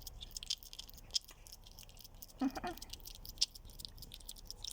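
A hedgehog crunching dry cat food: irregular small crunches and clicks. A brief voice-like sound comes about two and a half seconds in.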